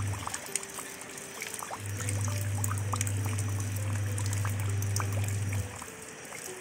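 Rain falling into a shallow puddle over gravel, with many single drops plinking on the water. Under it, soft background music and a low steady drone that drops out twice, about half a second in and again near the end.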